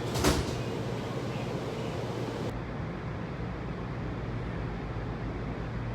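Washington Metrorail car doors shutting with a single sharp thud about a quarter of a second in, then the steady low hum of the railcar.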